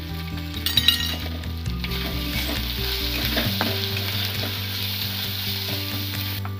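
Onion, ginger-garlic and chilli paste sizzling in hot oil in a steel kadai, with freshly added ground coriander, cumin and chilli powder being fried into the masala. A steel spatula stirs and scrapes the pan, with a few sharp clinks about a second in.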